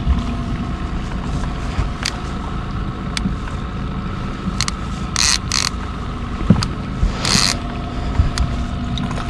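Boat engine running steadily under way, a low rumble with a constant hum. Scattered clicks and a few short hissing noises in the second half ride over it.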